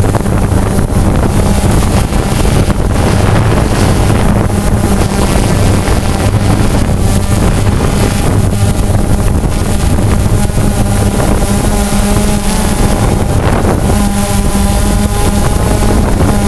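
DJI Phantom 2 quadcopter's four motors and propellers buzzing loudly in flight, heard up close from the camera mounted on it. Propwash buffets the microphone. The motor tones shift in pitch as the drone climbs and comes back down.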